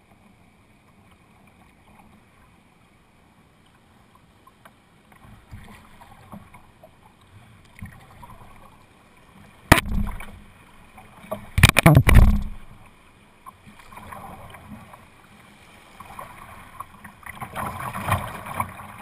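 Kayak moving down a river, heard from the bow: water lapping and splashing against the hull with paddle strokes. There is a sharp knock about ten seconds in and a cluster of louder knocks and splashes about two seconds later, and the sound of rippling, rushing water builds near the end.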